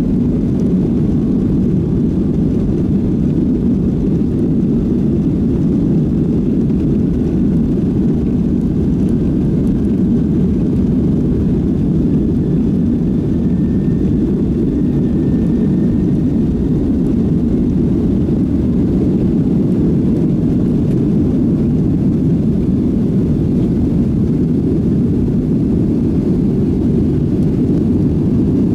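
Cabin noise of a Boeing 737-700 at takeoff thrust, heard from a window seat behind the wing: a steady, loud, low roar from the CFM56 engines as the jet races down the runway and lifts off.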